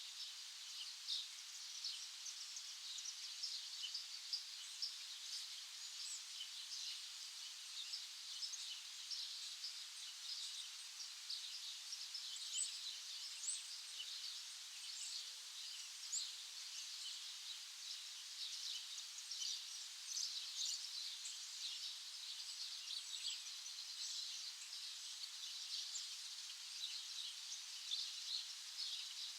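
Many small birds chirping at once: a dense, unbroken chorus of short high-pitched chirps.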